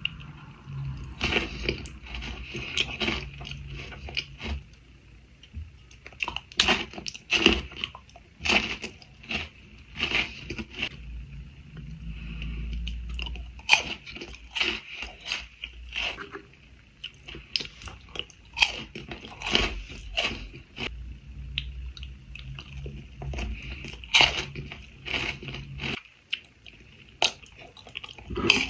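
Close-miked chewing of Ferrero Rocher chocolates, with many irregular crisp crunches as the wafer shell and hazelnut are bitten and chewed, and wet mouth sounds between them.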